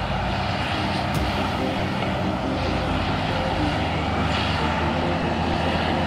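Crawler bulldozer's diesel engine running steadily under load as it pushes a blade full of dirt, a constant low engine drone.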